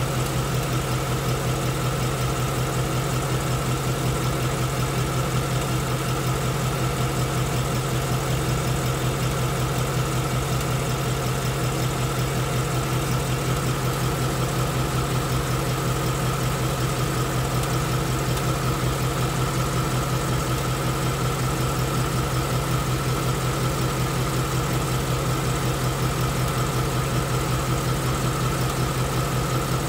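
2016 Ford Mustang GT's 5.0-litre second-generation Coyote V8 idling steadily.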